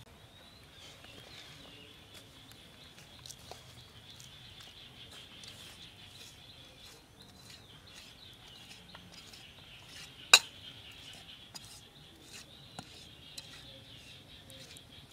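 A large knife cutting into a raw chicken leg on a wooden chopping board: soft slicing with small ticks, and one sharp knock of the blade on the board about ten seconds in. A steady high chirping goes on behind it.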